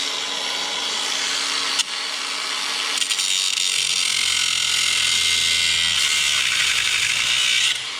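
Angle grinder cutting through a steel strip: a steady, high grinding hiss that grows louder about three seconds in, with a brief knock about two seconds in, and stops shortly before the end.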